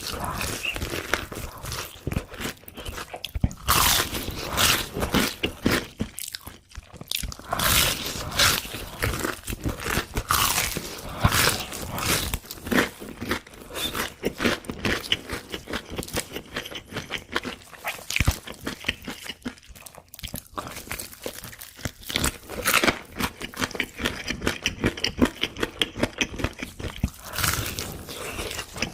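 Close-miked eating of crunchy fast food: irregular loud crunching bites with chewing between them, a few bites standing out louder than the rest.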